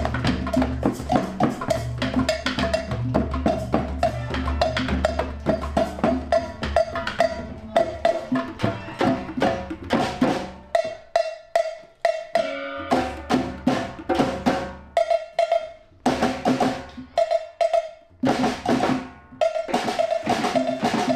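Drums played together in a busy rhythm: bodhráns beaten with tippers and a hand drum played with the fingers, many strokes a second. About halfway through the playing thins into sparser phrases broken by short pauses.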